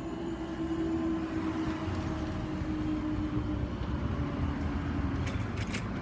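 Class 153 and Class 156 diesel multiple unit passing over the crossing: a steady low rumble with an engine note that slowly falls in pitch, and a few light clicks near the end.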